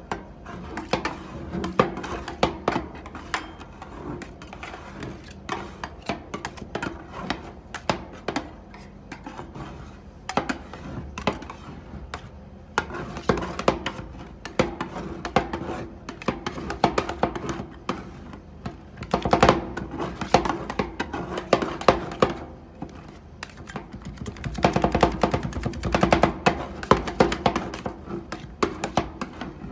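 Metal spatulas chopping chocolate into an ice-cream-roll base and scraping across a chilled steel pan: rapid metallic taps and scrapes over a steady ringing tone. The chopping is busiest about two-thirds of the way through and again near the end.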